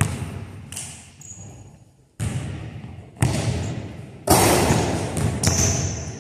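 Basketball bouncing on a hardwood gym floor, then a dunk: one loud slam of the ball through the rim a little over four seconds in, followed by more impacts that die away.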